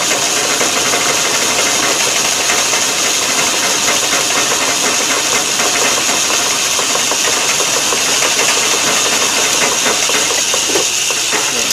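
Metal lathe running steadily, its four-jaw chuck spinning, giving a constant mechanical rattle under a strong high hiss.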